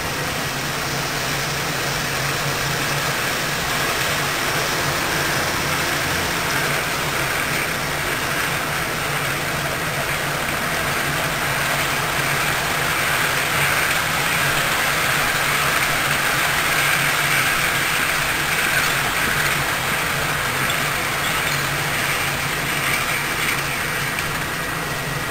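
Model train running along the layout's track: a steady hum and rolling noise, a little louder in the middle as the train goes by.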